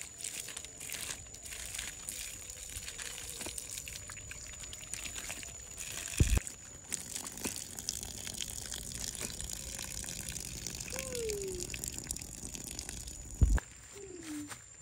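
A thin stream of water pouring and splashing onto a face and cupped hands and spattering on the ground below, as someone washes their face with it. Two dull thumps, about six seconds in and near the end, are the loudest sounds, and the splashing stops near the end.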